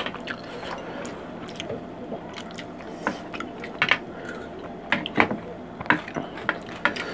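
Mealtime eating sounds: chewing and hands squishing curry and rice on plates. Several sharp clicks and taps are scattered through it, from a plastic serving ladle knocking against a bowl and plates.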